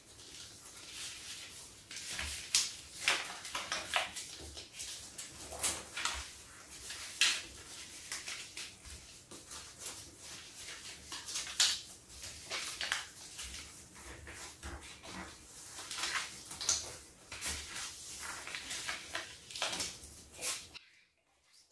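Paper rustling and crinkling as sheets of yellow craft paper are folded and creased by hand, in irregular short rustles. It cuts off suddenly about a second before the end.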